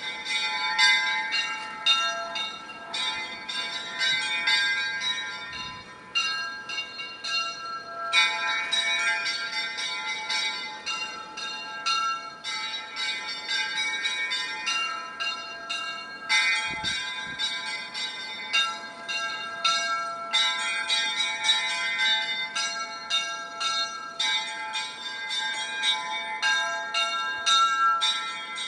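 Russian Orthodox church bells ringing a continuous festive peal: many bells struck in quick succession, their tones overlapping and ringing on, with the pattern regrouping every few seconds.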